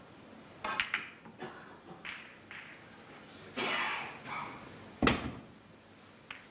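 Snooker balls clicking sharply as the cue ball strikes the pack of reds, then a loud knock about five seconds in as the cue ball comes off the top cushion, with a softer click near the end.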